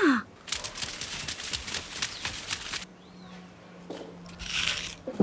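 Dry crunching and rustling for about two seconds, then quieter, with a faint steady low hum and a brief hiss near the end.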